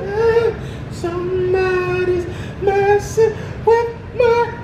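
An unaccompanied voice singing long held notes: one steady note about a second in, then a string of shorter notes toward the end.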